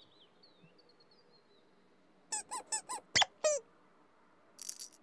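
A quick run of short, high, squeaky cartoon-like sounds about two seconds in, ending with a sharp upward squeak and a falling squeak, over faint birdsong. A brief bright tinkle follows near the end.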